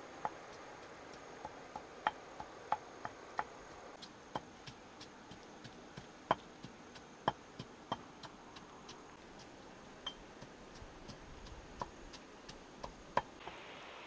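Scattered short, sharp clicks and light knocks at an uneven pace, at most about two a second, over a faint steady high-pitched tone.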